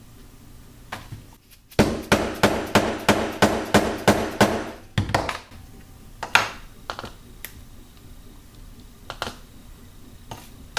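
A quick run of about ten sharp knocks, roughly three a second, from the wooden dowel ramming clay down into a half-inch PVC rocket-engine tube. A few lighter single knocks follow as the work is finished off.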